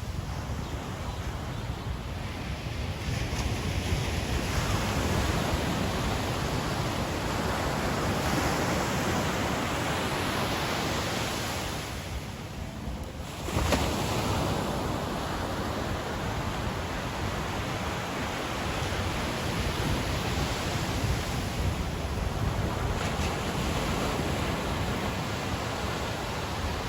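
Ocean surf on a beach: a steady rush of breaking waves and wash that builds, dips briefly about halfway through, then comes back suddenly as the next wave breaks.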